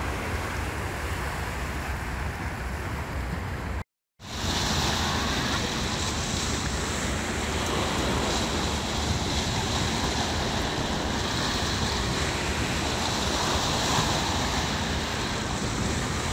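Waves washing onto a rocky shore, with wind on the microphone. The sound cuts out for a moment about four seconds in, then resumes with more hiss.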